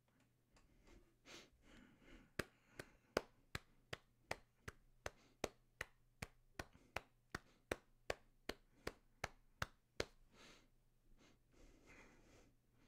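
Fingers snapping in a steady rhythm, keeping time to music heard only over headphones: about twenty sharp snaps, a little under three a second, starting about two seconds in and stopping about ten seconds in.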